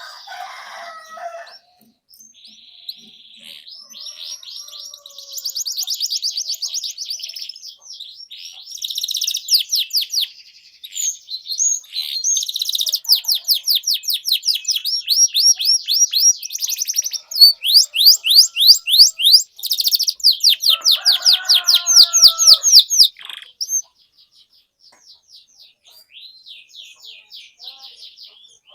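Domestic canary in full song, a long run of rapid trills and rolls of quickly repeated high notes. It builds up over the first few seconds, is loudest in the middle, and goes softer near the end. This is the vigorous 'gacor' song that keepers play as a lure to get silent canaries singing.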